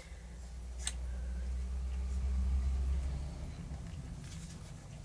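Low rumble of a passing vehicle, swelling to its loudest about two and a half seconds in and then fading, with a single sharp click about a second in.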